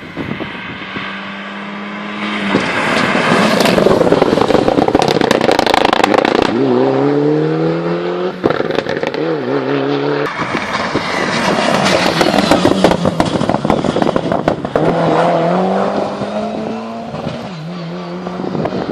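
Hill-climb competition car's engine revving hard, its note climbing and dropping again and again as it shifts up through the gears, with sharp exhaust crackles. It is loudest twice, about 4 s in and again about 12 s in.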